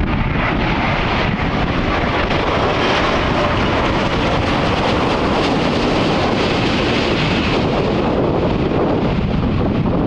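Airbus A330-900 jet airliner with Rolls-Royce Trent 7000 turbofans on landing approach, a steady engine rush that swells in the middle and fades again near the end, with wind buffeting the microphone.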